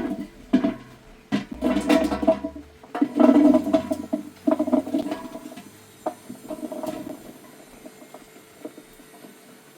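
Water pouring and sloshing in uneven bursts for about six seconds, then a few light knocks and clatters.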